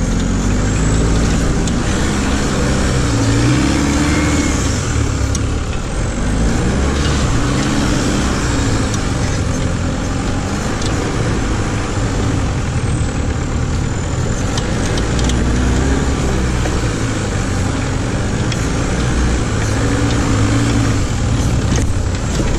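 VW Käfer buggy's engine driving hard off-road, its pitch rising and falling again and again as it revs up and eases off, over a steady noise of tyres and wind, with a few sharp knocks from the buggy.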